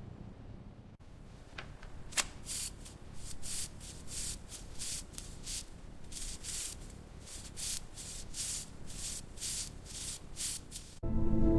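Repeated hand rubbing strokes against a surface, like sanding or scrubbing, about three a second, with a sharp click about two seconds in. Music starts abruptly near the end.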